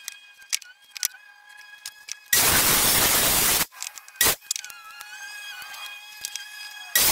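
Electric compound miter saw cutting through a Douglas fir 4x4: a loud, even burst of about a second and a half that starts and stops abruptly a couple of seconds in, a short burst soon after, and another cut starting near the end. Between cuts there are light clicks of the wood being handled and marked, over faint background music.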